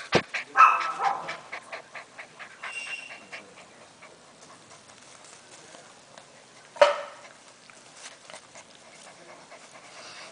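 A six-week-old golden retriever puppy panting quickly, close to the microphone. Sharp knocks come from a puppy bumping into the camera, one at the start and a loud one about seven seconds in.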